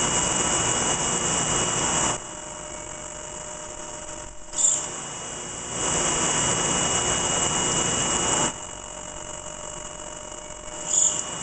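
CNC machine drilling dowel holes with a through-coolant drill on a multi-axis head, coolant spraying hard around the bit over a steady high whine. The loud spray-and-cutting hiss comes in two spells of two to three seconds, with quieter running between and a short sharp burst about four and a half seconds in and again near the end.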